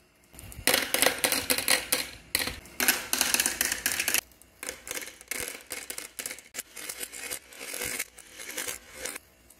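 Marbles rattling down a metal rail and clattering into the plastic bin of a toy garbage truck. A dense run of clicking from about half a second in to about four seconds, then scattered bursts of clatter.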